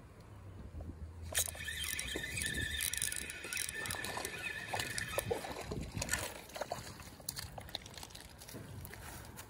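Spinning reel cranked hard from about a second in, a steady whir while line is retrieved, then splashing and scattered ticks and rustles as a small bass is landed at the water's edge.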